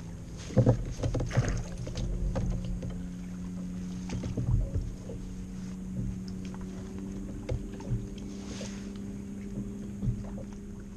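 Irregular knocks and clatter of gear being handled on a fishing kayak, loudest about half a second in and again midway, over a steady low hum.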